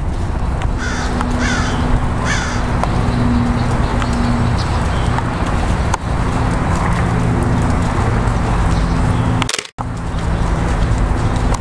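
A crow cawing three times about a second in, over a steady low rumble from the horse cantering on arena sand. The sound drops out briefly near the end.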